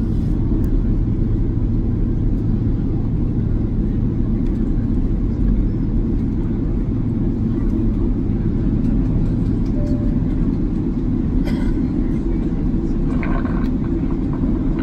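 Steady low rumble of jet engines and rushing air heard inside an airliner's cabin.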